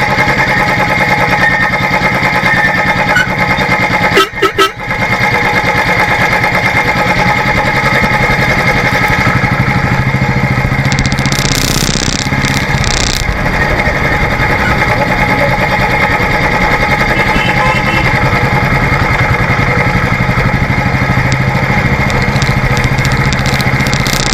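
Royal Enfield Classic Electra's single-cylinder engine running steadily under way, heard close from the bike itself. About four seconds in there is a short, very loud burst in three quick pulses.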